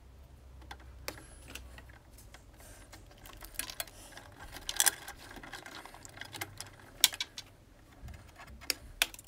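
Irregular small clicks and rattles of hand tools and cables being worked in a consumer unit as the cables are stripped back and dressed, with a few sharper clicks standing out.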